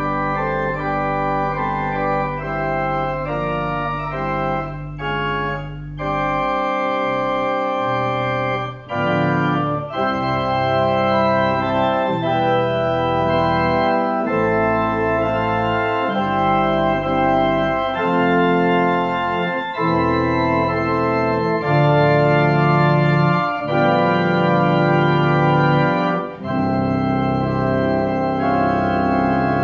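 Organ music: sustained chords over a held bass for the first few seconds, then chords moving every second or two.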